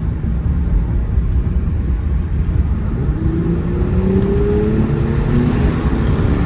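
Mercedes-AMG E43's twin-turbo V6 engine pulling under acceleration with steady road rumble, its pitch climbing from about halfway through.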